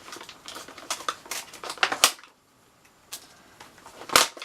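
Tripod packaging being handled and pried open by hand: a run of sharp clicks and crackles, a pause about two seconds in, then a few louder clicks near the end.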